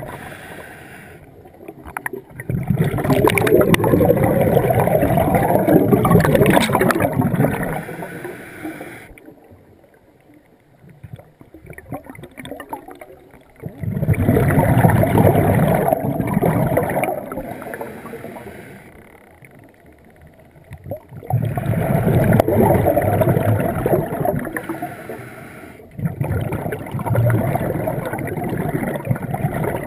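A scuba diver's exhaled bubbles pouring from the regulator, heard underwater as four long bursts of bubbling several seconds each, with quieter pauses between breaths.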